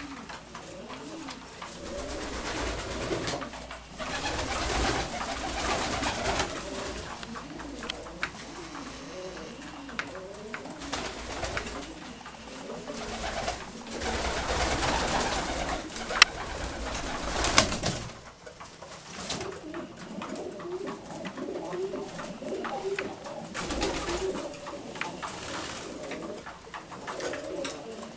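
Domestic fancy pigeons of Saxon breeds cooing over and over in a small loft, with stretches of rustling noise and two sharp clicks about two-thirds of the way through.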